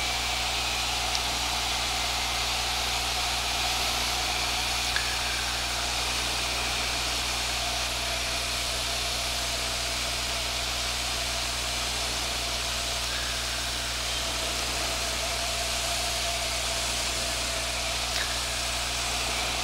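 Piper PA-22/20-135 Pacer's 135 hp Lycoming O-290 four-cylinder engine and propeller running steadily on final approach, heard inside the cabin with a constant hiss of air noise.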